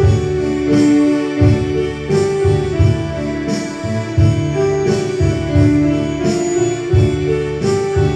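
Instrumental music: held melody notes over a steady beat, with no singing.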